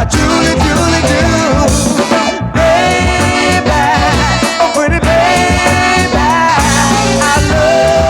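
Soul music recording: a full band playing with a steady beat and bass under a bending melody line, with no lyrics sung.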